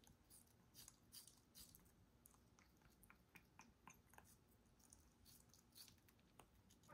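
African grey parrot biting and chewing watermelon flesh with its beak: faint, irregular little crunches and clicks.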